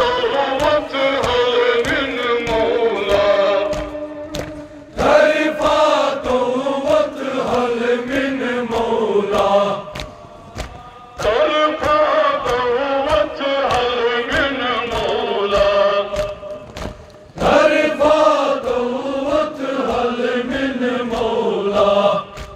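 A Kashmiri noha, a Muharram lament, chanted by male voices over a microphone in phrases of about five seconds with short breaks. Under it runs a steady beat of chest-beating (matam) slaps.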